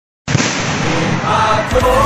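Opening of a Christmas song: after a brief silence, a wash of choir-like voices comes in, then held sung notes, and a beat with bass kicks starts near the end.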